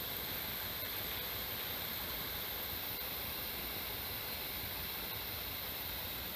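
Hunter pop-up rotor sprinkler throwing a jet of water over a crop, a steady spray hiss.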